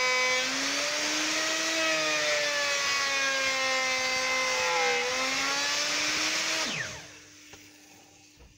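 Router with a flush trim bit cutting a channel in MDF, a steady motor whine whose pitch sags and recovers under load. Near the end the router is switched off and its whine falls away as it winds down.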